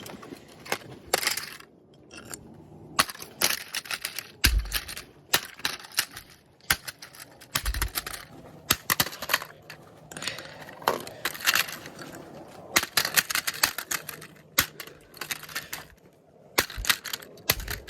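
Plastic speaker parts being pried and pulled apart by hand: a steady run of irregular clicks, knocks and cracks, with a couple of heavier thumps.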